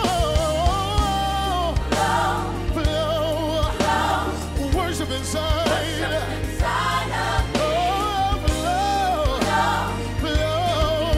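Gospel song playing: sung melody with vibrato over a steady bass line.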